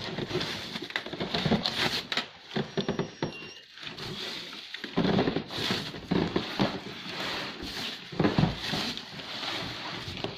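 Cardboard shipping carton scraping and rustling as it is worked up off a plastic-wrapped dishwasher, with the plastic wrap crinkling and scattered knocks and scuffs, in several irregular bouts.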